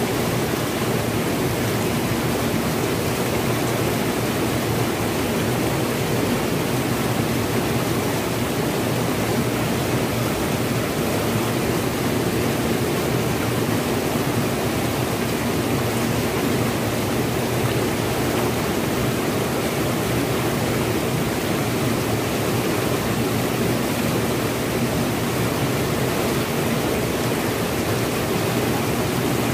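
Fast, swollen river in flood rushing past over rocks, a steady even rush of water that does not change.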